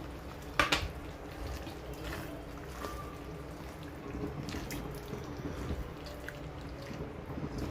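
Chilli gravy (mirch ka salan) bubbling softly in a pan, with one sharp clink of a utensil against the pan about half a second in and a few lighter ticks after.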